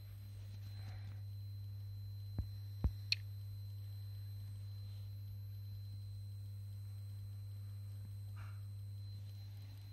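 Steady low electrical hum from running Soviet lab electronics, a UIP-1 power supply and an S1-72 oscilloscope, with a faint high whine above it. Three sharp clicks come close together about two and a half to three seconds in.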